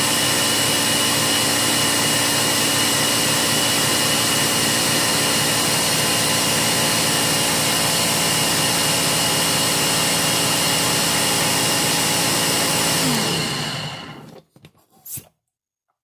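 Countertop blender running steadily, emulsifying a warm mix of melted beeswax, oils and aloe juice into lotion. About 13 seconds in the motor is switched off and winds down, and a single click follows shortly after.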